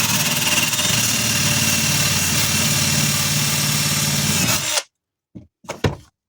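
Handheld power tool running steadily at full speed, then cutting off abruptly about five seconds in, followed by two brief short sounds.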